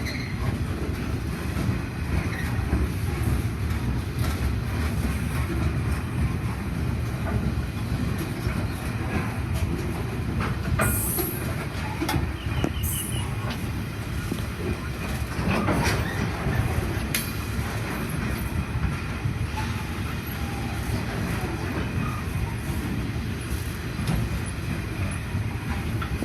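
Coal train's wagons rolling past with a steady rumble and the clickety-clack of wheels over rail joints. A few brief high wheel squeals come about halfway through.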